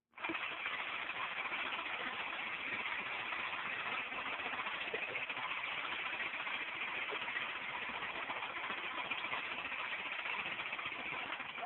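Jackhammer hammering continuously, a dense rapid chatter that starts abruptly and breaks off near the end.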